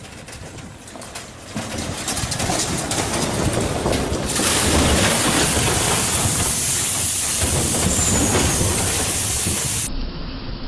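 A loud, steady rushing rumble with rapid clicking that builds over the first few seconds, then cuts off abruptly near the end.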